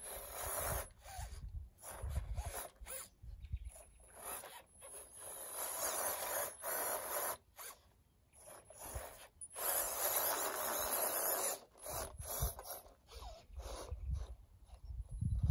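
Scale RC crawler (FMS FJ45 Land Cruiser) with its electric motor and gears whirring in uneven bursts as it crawls up and over a loose dirt mound. A faint high whine runs under the motor noise, with low rumbles now and then.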